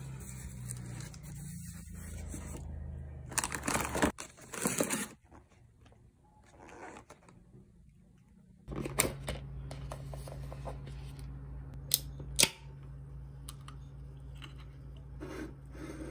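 Rustling and scraping of food delivery packaging as a styrofoam cooler box and plastic-packed salad containers are unpacked, with a few sharp clicks, over a low steady hum.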